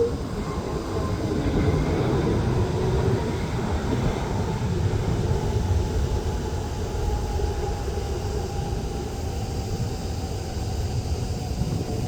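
Jet airliner engines rumbling steadily, with a faint whine that slowly falls in pitch through the middle of the sound.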